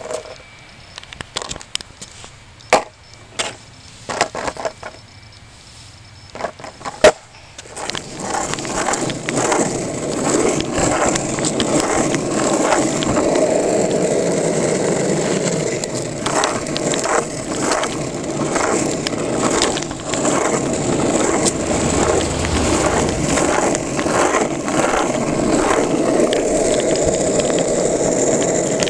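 Longboard wheels rolling on asphalt, a steady rolling noise that sets in about seven seconds in, after a few sharp clicks and knocks.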